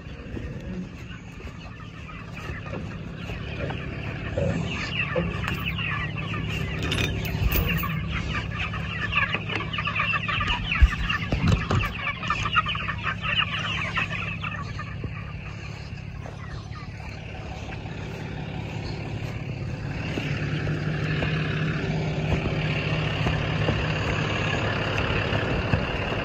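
Broiler chickens clucking and chattering in a crowded pasture pen, busiest through the first half, over the low steady hum of the tow truck's engine running.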